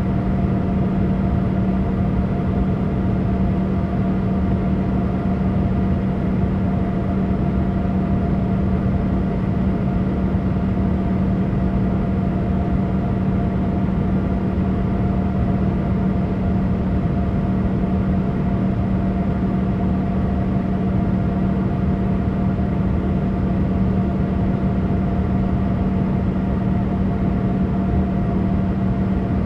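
Boeing 787 cabin noise: the jet engines and airflow make a steady, unchanging drone with a strong low hum and a fainter higher tone.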